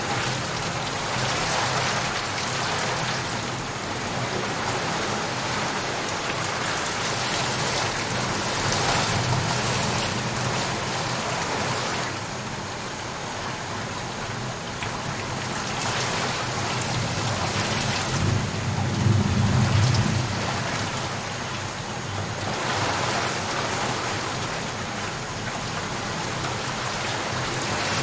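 Steady rain falling and pattering on surfaces, with low rumbles of thunder swelling twice, the louder one about two-thirds of the way through.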